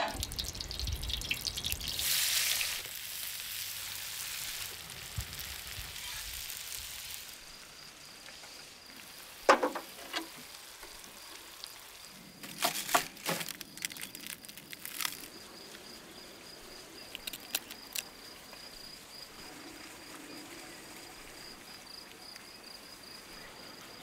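Food sizzling in a wide iron pan over a wood fire, with a few sharp knocks and clinks partway through. A thin, steady high-pitched tone sets in about a third of the way in.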